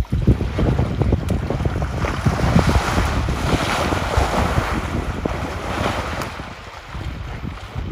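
African bush elephant sinking down into shallow river water and splashing, a rushing slosh of water that builds over the first few seconds and eases off near the end. Wind buffets the microphone underneath.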